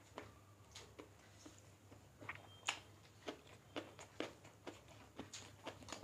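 Faint eating sounds from people eating rice and chicken curry by hand: irregular short wet smacks and clicks, about two a second.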